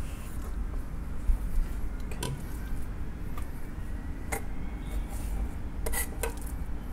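Kitchen knife slicing a raw fish fillet on a wooden cutting board, the blade clicking sharply against the board three or four times, over a steady low hum.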